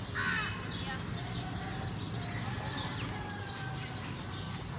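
Outdoor garden ambience: birds chirping over a steady low background hum.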